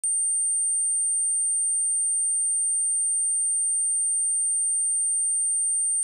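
Steady high-pitched pure sine tone at 8818 Hz, starting abruptly and holding at one even level. It is a test tone for checking speakers and headphones and for shaking water and dust out of a speaker.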